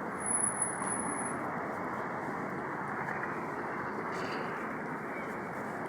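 Steady city street traffic noise, with a brief thin high tone near the start.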